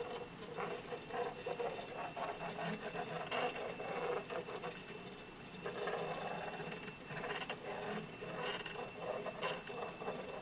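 Homemade pen plotter running as it draws: its drive humming steadily with a faint high whine, over a rapid, irregular ticking and scratching as the pen moves across the paper.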